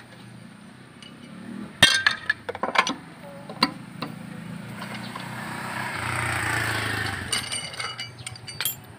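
Metal clinks and knocks of a lug wrench on a car's wheel nuts: one sharp clink about two seconds in, scattered clinks after it, a few seconds of rushing noise midway, and another run of clinks near the end.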